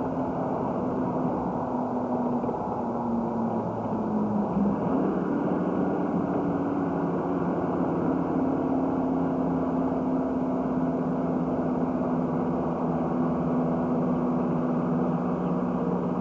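Steady car engine and road noise heard from inside a moving car, with the engine note dipping briefly about four seconds in.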